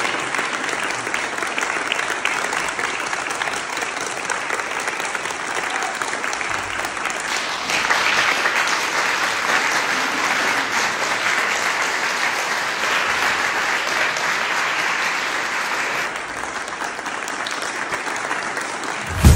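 Audience applauding, a dense, steady clapping that gets a little louder about seven seconds in and eases near the end.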